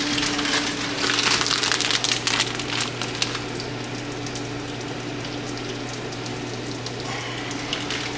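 Food sizzling and crackling in hot fat in a frying pan, with the crackles thickest in the first few seconds, over a steady low hum.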